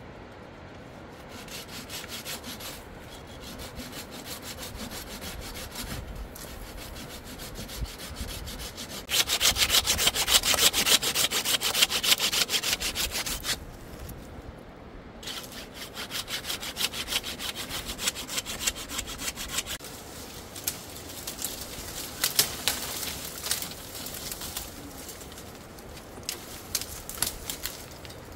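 Steady rasping strokes, like a hand saw or a blade scraping, with short pauses and a loudest stretch of a few seconds near the middle.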